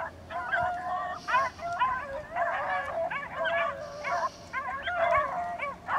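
A pack of beagles baying in full cry while running a rabbit on its scent trail: several dogs' overlapping howling barks, one after another without a break.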